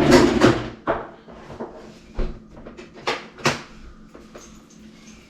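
Knocks and clattering of things being handled around a kitchen sink cabinet: a quick cluster of sharp knocks in the first second, then single knocks a little after two, three and three and a half seconds in.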